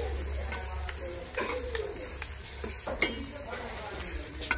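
Chicken frying and sizzling in onion-tomato masala in an aluminium pot, stirred with a long metal ladle that clinks and scrapes against the pot about three times.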